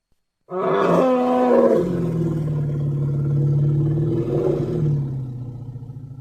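Elephant call: it starts abruptly about half a second in with a higher opening that drops into a long, steady low rumble, fading toward the end.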